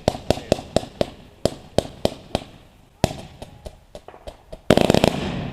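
Fireworks and firecrackers going off: many sharp bangs at an uneven pace, several a second, then about four seconds in a loud burst of dense crackling.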